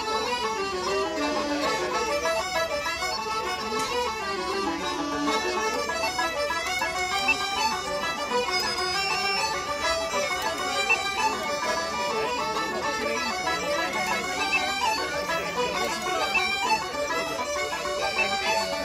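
A traditional Irish tune played by an ensemble of uilleann pipes, fiddle, banjo, button accordion and bodhrán, with the pipes leading and the melody running without a break.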